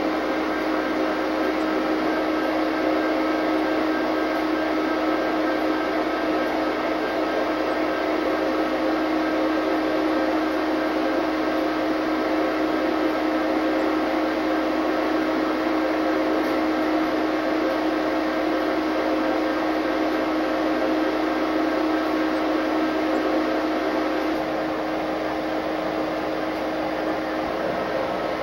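Steady machinery drone heard inside the cab of an EMD SD60M diesel locomotive, a constant hum with several fixed pitches.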